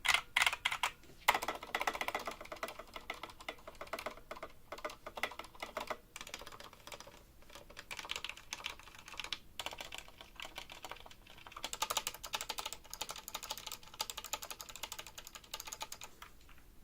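Typing on a Skyloong GK61 60% mechanical keyboard with yellow Gateron optical switches: a fast, uneven stream of key clicks. The keystrokes are loud and ringing, which the reviewer puts down to the hollow bottom of the case amplifying the sound, along with plate resonance.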